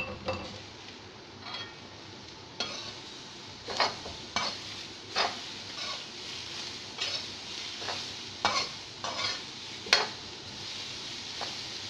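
A spoon stirring and scraping chopped banana flower in a frying pan, with irregular knocks and scrapes against the pan over a steady sizzle of hot oil.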